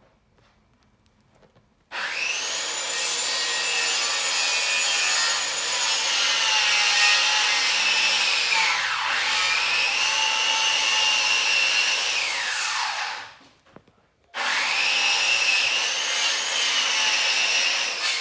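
A loud motorised machine runs with a high whine over a rushing noise. Its pitch dips and recovers midway, falls away as it stops, and it starts again about a second later.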